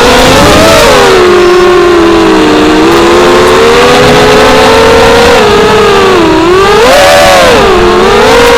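FPV racing drone's brushless motors whining, the pitch rising and falling with throttle: it drops about a second in, holds fairly steady, dips sharply twice near the end, then climbs.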